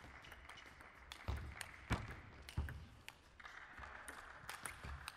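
Table tennis rally: the ball clicking sharply off the bats and the table, a stroke every half second or so, some with a low thud beneath, over the steady hiss of a large hall.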